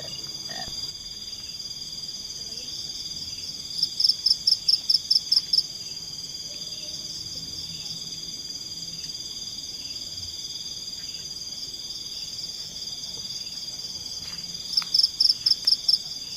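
A night insect chorus of crickets trilling steadily at a high pitch. Twice a louder, rapid series of about ten sharp chirps from a single caller stands out, once a few seconds in and again near the end.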